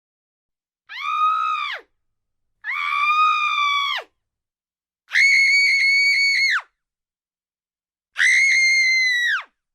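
A high-pitched female scream, four times in a row, each held for a second or so and then dropping off in pitch at the end. The last two are pitched noticeably higher than the first two.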